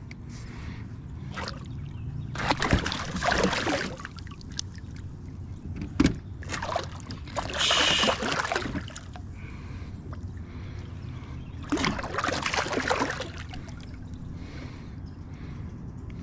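A hooked drum splashing at the surface beside the boat in three bursts of splashing and sloshing water, with a single sharp knock about six seconds in.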